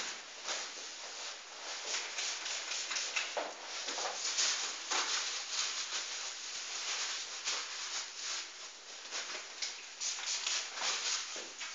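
Hands rubbing and patting the bare skin of a back: a run of irregular soft swishes and pats, two or three a second.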